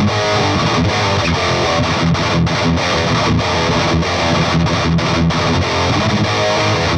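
Electric guitar through a Peavey Bravo 112 all-tube combo amp on its highest-gain channel with the pre-gain all the way up: heavily saturated, distorted riffing with many quick picked notes. The gain is masking the top end of the tone.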